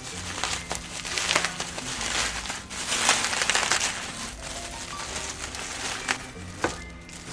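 Packaging crinkling and rustling as the box is unpacked, with a few sharp clicks, over soft background music.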